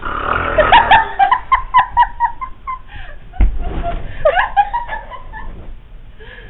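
A person giggling in a quick run of short, pitched bursts. There is a low thump about three and a half seconds in, and the laughter tails off near the end.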